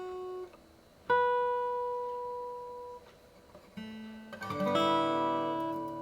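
Steel-string acoustic guitar played fingerstyle in a slow melody: a single note plucked about a second in rings and fades, then a few more notes follow about two-thirds of the way through and ring together as a chord.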